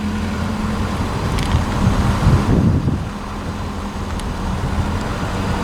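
Car driving at steady speed, heard from inside the cabin: an even engine hum under road and tyre noise.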